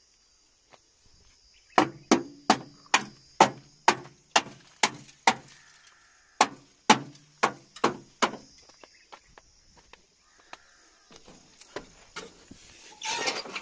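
Sharp knocks of a hand-held stone striking the steel frame of a tractor seed drill: a run of about nine blows, roughly two or three a second, a short pause, then five more. A brief rush of noise near the end.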